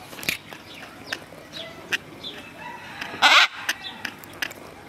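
A macaw gives one short, loud, harsh squawk a little past three seconds in, amid scattered short chirps and clicks.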